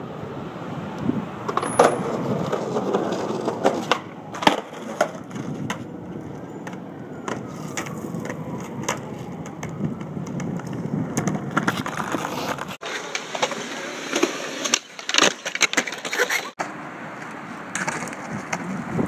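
Skateboard wheels rolling on rough pavement, with several sharp clacks of the board popping and landing.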